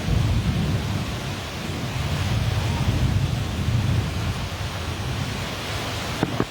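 Rain falling in a thunderstorm, with a low rumble of thunder swelling and fading under it. Two sharp clicks near the end.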